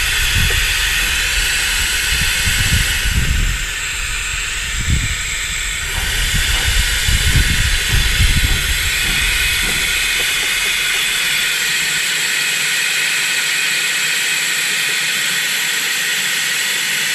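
Steady hiss of compressed air running through a venturi vacuum oil extractor as it sucks warm oil from the diesel generator's crankcase, briefly softer from about three and a half to six seconds in. Irregular low thumps and rumbles through the first ten seconds or so.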